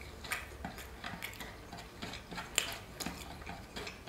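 Fingers and a piece of flatbread scraping and tapping on a stainless steel divided tray while scooping up food: a string of small irregular clicks and scrapes, the sharpest about two and a half seconds in.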